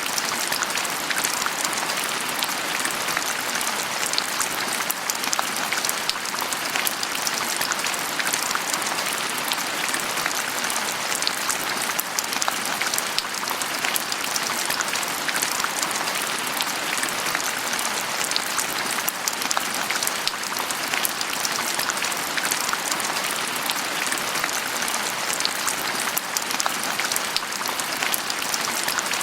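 Steady rain with a dense patter of drops on a surface, an even hiss that holds without a break.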